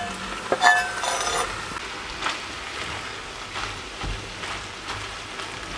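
A knife pushing chopped peppers off a wooden board into a frying pan, with a ringing metal clink about a second in. Then a spatula stirring pork mince and peppers in the pan, over a faint sizzle of frying.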